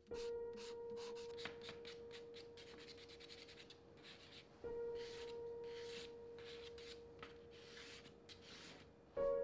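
Charcoal stick scratching across drawing paper in quick, repeated strokes. A steady humming tone from the score sounds under it, starting sharply at the beginning and struck again about halfway through.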